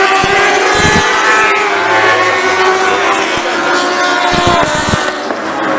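Several lightning sprint car engines running at once, their pitches rising and falling against one another as the cars circle the track. A few low thumps come in about a second in and again near the end.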